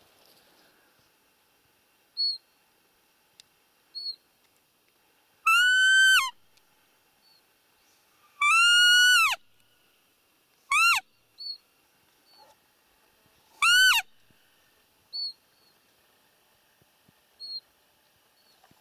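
Roe deer call blown four times, a few seconds apart: loud, high whistled squeaks, each rising and then dropping away, the second one the longest, imitating a doe's squeak to lure a rutting roe buck. Faint short high chirps come between them.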